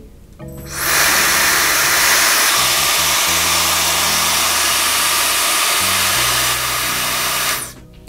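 Laifen Swift hair dryer switched on at its high speed setting: a loud, steady rush of air that starts just under a second in and cuts off near the end.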